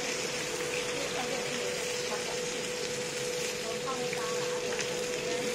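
Steady sizzling of cabbage and bamboo-shoot buns pan-frying in oil in a large round pan, with a steady hum underneath and faint voices in the background.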